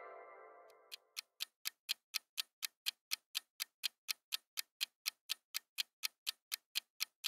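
Countdown timer sound effect: a clock ticking about four times a second, the ticks growing slightly louder. A pitched chime fades out during the first second.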